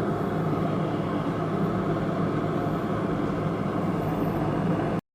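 Electric kettle heating water toward the boil: a steady rushing noise that cuts off abruptly near the end.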